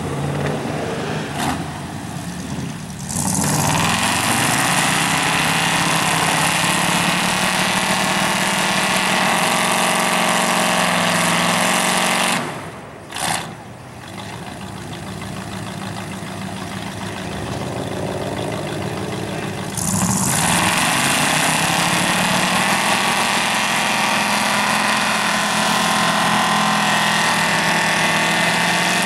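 Pickup truck engines revving hard under load as one truck strains to tow another out of a mud pit. There is a brief drop about twelve seconds in, and the engines surge loud again about twenty seconds in.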